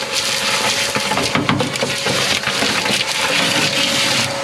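Vacuum cleaner running with a steady whine while it sucks up dirt and debris, which crackles and rattles through the hose in many quick clicks.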